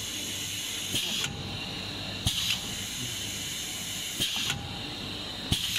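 Automatic tube filling machine running: a steady hiss, broken four times by a sharp click and a short burst of air hiss as its pneumatic cylinders stroke and the turntable indexes to the next tube.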